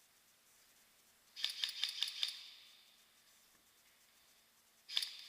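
Airsoft electric rifle firing two short bursts of rapid clicking shots, about six a second: one about a second and a half in, the other near the end, each trailing off in a brief echo.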